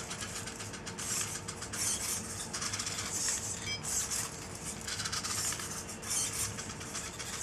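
Hobby servo motors of a 3D-printed quadruped robot dog whirring in short repeated bursts as it steps and turns its sensor head.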